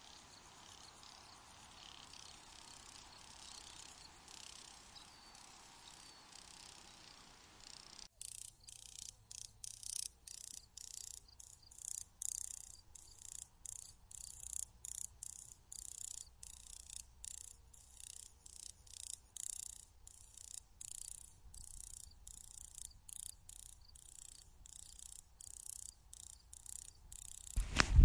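Faint hiss, then, from about eight seconds in, high-pitched chirping repeated steadily about twice a second. Just before the end, a sudden loud low rumbling noise takes over.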